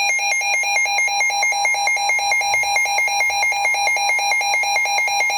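Emergency Alert System attention signal: a loud two-tone electronic alarm with a fast, regular pulsing warble. It announces an emergency alert, here a tornado warning.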